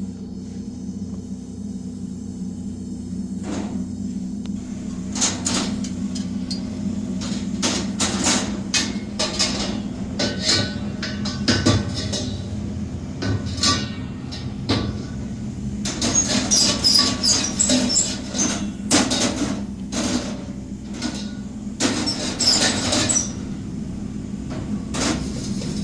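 Irregular hammer blows and metal clanks on copper, starting a few seconds in and coming thicker later, some with a bright ring. Under them runs a steady low machine hum.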